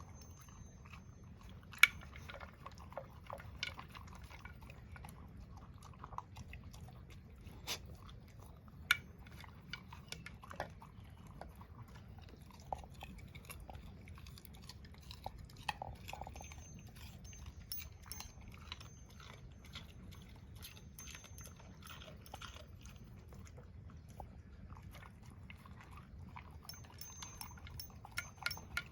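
A dog chewing, with irregular crunchy clicks throughout; a sharp click about two seconds in is the loudest.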